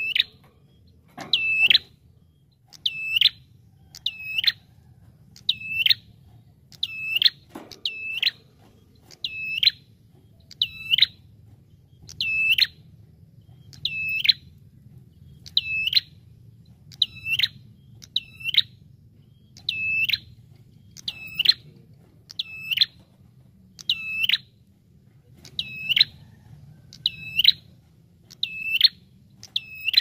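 Ashy tailorbird (prenjak kepala merah) calling: a loud, sharp note that dips and rises in pitch, repeated evenly about every one and a half seconds, the lure call used for tailorbirds.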